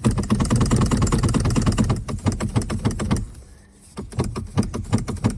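Steering wheel of a 2008–2014 Mercedes being jerked hard left and right against its locked electronic steering lock: rapid clattering knocks for about three seconds, then a few scattered clunks. The jolting is meant to shake a failed steering lock free so the car will crank.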